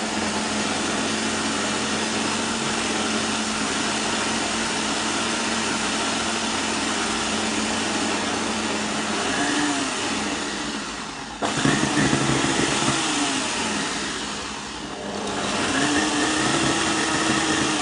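Kenwood stand mixer running, its whisk beating egg whites, sugar and apricot purée to a foam in a stainless steel bowl. It makes a steady whir; the level jumps abruptly about eleven seconds in, dips briefly, then comes back up.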